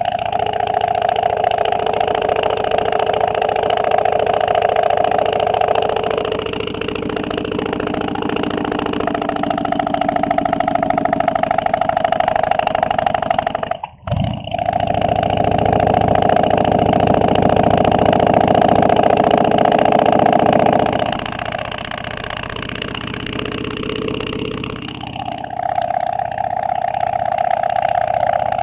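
Harley-Davidson V-twin engine running under way on the road. The sound eases off for a few seconds about a quarter of the way in and again near the end, then pulls back up. It breaks off sharply for a moment about halfway through.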